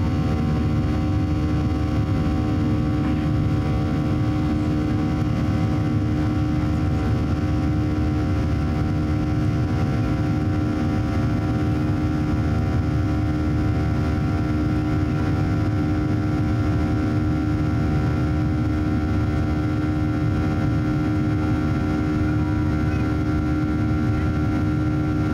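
Boeing 737-800's CFM56-7B jet engines running steadily, heard from inside the passenger cabin: a loud, even drone with several held tones over a deep rumble.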